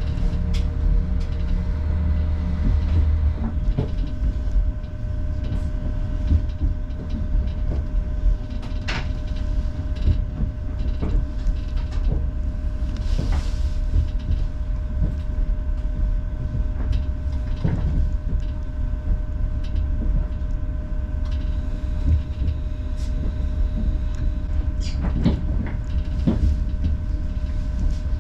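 Local diesel train on the Nemuro Main Line running with a steady low rumble and a constant whine, with occasional sharp clanks from the running gear.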